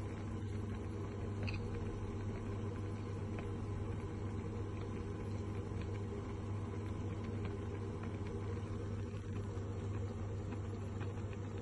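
Pot of water at a rolling boil, bubbling with small scattered pops, over a steady low electrical hum.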